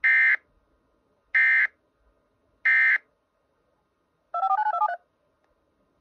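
Emergency Alert System end-of-message data tones from a radio stream playing over a laptop speaker: three short, harsh buzzing data bursts about a second and a half apart, marking the end of the Amber Alert. About four seconds in, they are followed by a quick run of touch-tone style beeps.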